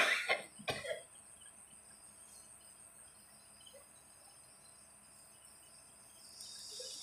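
A man coughing twice in quick succession, then near silence.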